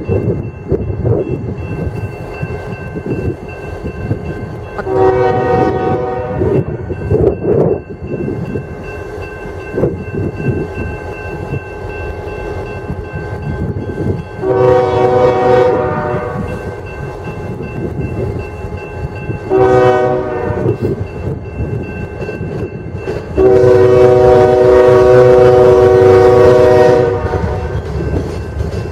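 Diesel locomotive air horn blowing the grade-crossing signal: two long blasts, a short one, then a final long blast, the last one the loudest. Between blasts, the train's rumble and wheel clatter continue.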